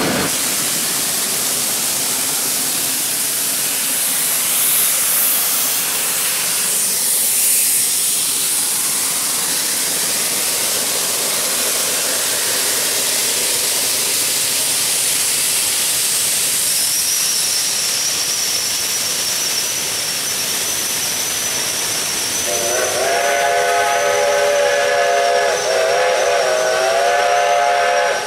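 Steam locomotive hissing loudly with escaping steam. Near the end its steam whistle starts: a long, chord-like blast of several tones with a slight waver in pitch, still sounding at the end.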